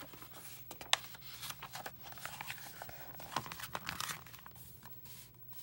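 Paper rustling and crinkling with scattered small clicks as the pages of a picture book are handled and turned, with one sharper click about a second in.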